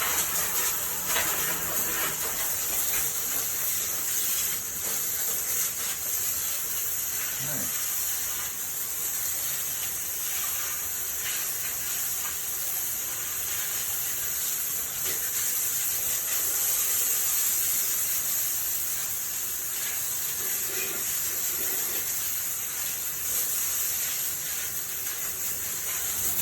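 Water spraying steadily from a nozzle onto a surface and down into a drain, a continuous hiss.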